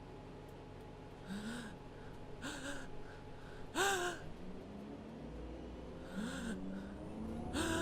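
A person's voice gasping in short, breathy "ah… ah…" intakes, about five in all, each rising and falling in pitch: the build-up to a sneeze.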